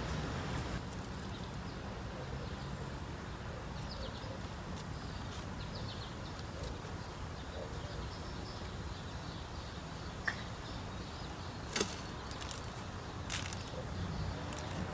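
Outdoor backyard ambience: a steady low rumble with faint bird chirps, and a few sharp clicks in the second half.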